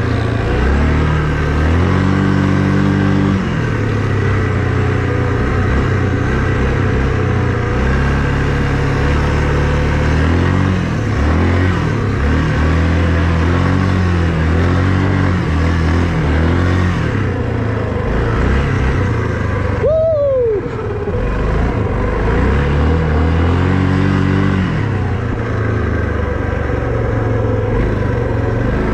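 Small all-terrain vehicle engine running hard as it is ridden in snow, revving up and falling back again and again. About twenty seconds in there is a brief falling squeal.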